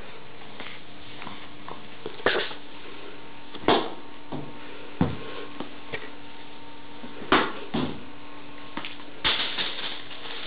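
A small ball knocking and bouncing on a linoleum floor as a cat plays fetch with it: about six separate thumps at uneven intervals, over a faint steady hum.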